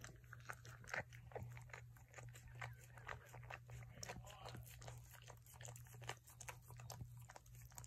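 Cocker spaniel mother licking and mouthing her newborn puppy to clean it: a faint run of many small, irregular clicks and smacks.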